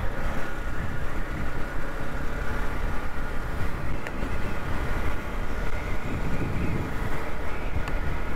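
Steady riding noise from a motorcycle moving through city traffic: engine and road noise with a constant low rumble.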